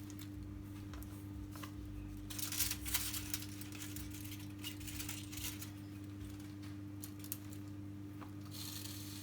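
Rustling and light clicks of vegetables being handled and set in place around a cabbage-wrapped fish, loudest about two and a half seconds in and again near the end, over a steady low electrical hum.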